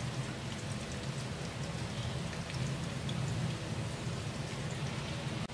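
Sliced red onions sizzling in hot oil in a wok, a steady crackle of many small pops over a low steady hum.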